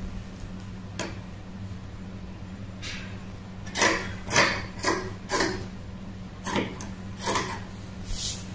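Scissors snipping through fabric: a few single cuts, then a quick run of snips about twice a second in the middle, over a steady low hum.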